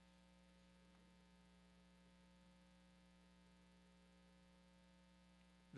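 Near silence with a low, steady electrical mains hum.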